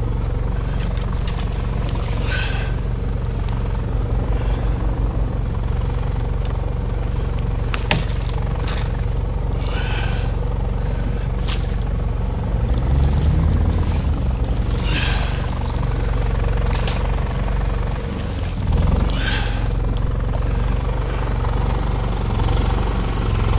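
Steady engine drone of the electrofishing boat's onboard generator, which powers the shocking booms. Four brief higher-pitched bursts rise over the hum, spaced several seconds apart.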